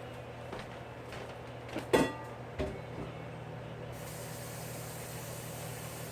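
Diced zucchini and summer squash sizzling in an oiled frying pan over a steady low hum, the hiss turning brighter about four seconds in. A few knocks of cookware, the loudest a ringing metal clang about two seconds in.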